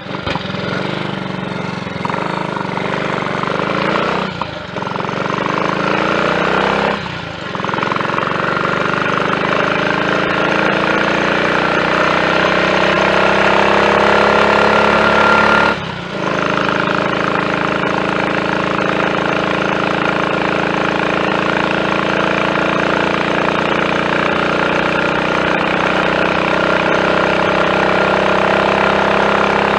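Triumph Tiger Cub's small single-cylinder four-stroke engine pulling the bike along, its pitch rising steadily through a gear, with short breaks in the sound at gear changes about 4, 7 and 16 seconds in, then holding a steady note. It runs without misfiring on its renewed carburettor slide, needle, needle jet and main jet.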